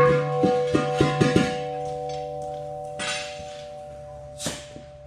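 Struck metal ringing like a bell: several quick metal-on-metal knocks in the first second and a half, then single knocks about three and four and a half seconds in, while a few clear ringing tones hang on and slowly fade.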